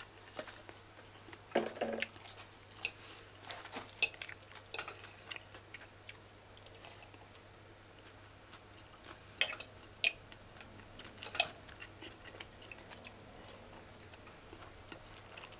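Someone eating from a plate: a metal fork clicking and scraping against the plate, mixed with chewing, in scattered short sounds.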